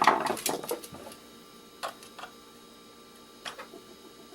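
Knife tip being turned in a triangle security screw: a quick run of clicks and scrapes in the first second, then single sharp clicks every second or so.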